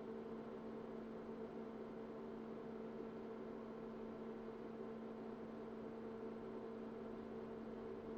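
Faint, steady hum over a light hiss from an open-cased IBM PS/2 Model 85 running idle, its power supply and fans turning. The hum holds two unchanging notes, one low and one about an octave higher.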